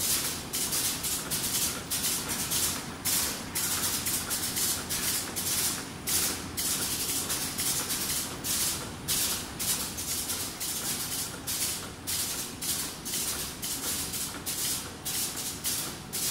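Plastic bag-making machine running, its cutting and sealing cycle giving a rhythmic hissing beat of a few strokes a second.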